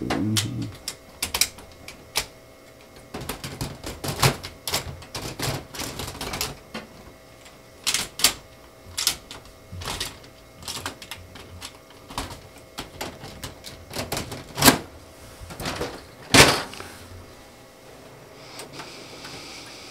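Irregular plastic clicks and knocks of a Brother TN227 toner cartridge being slid into its slot in a Brother MFC-L3710CW laser printer, with two louder knocks about three-quarters of the way through.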